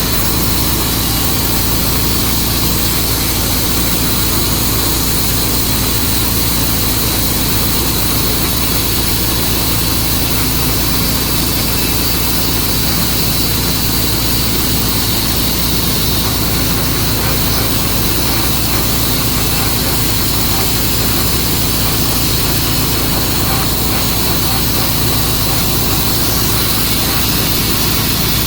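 Tru-Cut sawmill running steadily at full power through a juniper log, an even engine drone and saw hiss that does not change.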